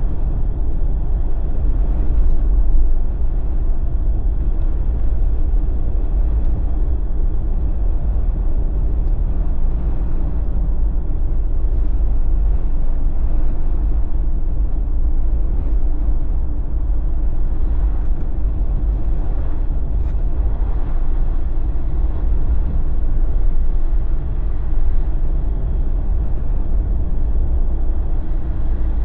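Steady low rumble of a Jeep driving along a road, its tyres and engine running at an even cruise.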